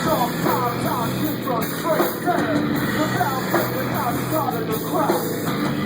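A band playing a heavy rock song: a steady low chord with a repeated falling pitched figure over it, several times a second. It is a song still being worked out and rehearsed.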